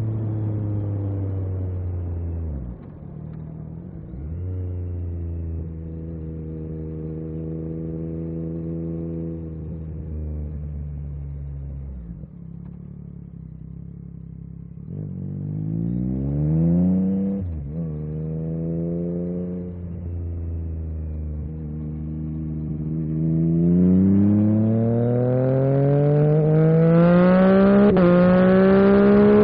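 Yamaha MT-09 SP's three-cylinder engine through an Akrapovic carbon racing exhaust, heard while riding. It holds steady revs, falls away off the throttle about 3 and 12 seconds in, then pulls up through the revs twice. Brief dips in pitch come during the climbs as it shifts up, and the revs are highest near the end.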